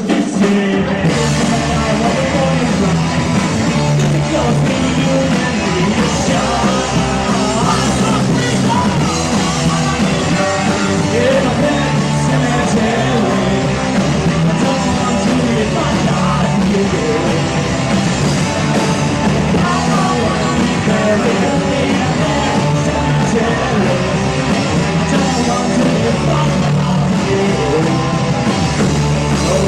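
Live rock band playing a song loudly and continuously, with a vocalist singing over guitars, bass and drums.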